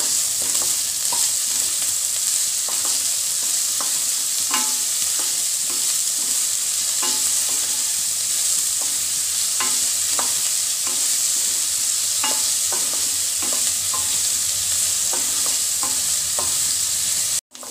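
Chopped onions sizzling in hot oil in a nonstick kadhai, with a wooden spatula stirring them and knocking and scraping against the pan in short strokes about once a second.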